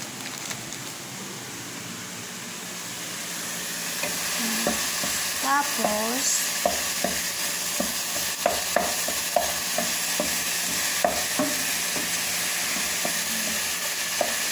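Ground chicken frying with a steady sizzle in a nonstick pan, stirred with a wooden spatula that knocks and scrapes against the pan many times, irregularly, from about four seconds in. The sizzle grows louder over the first few seconds.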